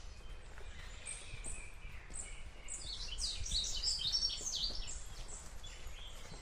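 Songbirds singing: scattered high chirps, then a dense run of quick falling chirps, loudest from about three to five seconds in, over a low rumble.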